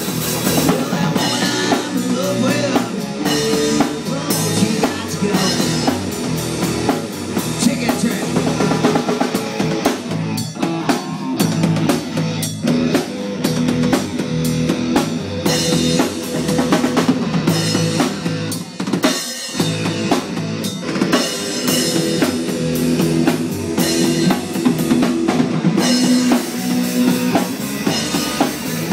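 Live rock band playing an instrumental passage: electric guitars and bass over a drum kit with bass drum and snare, loud and driving, with a momentary drop about two-thirds of the way through.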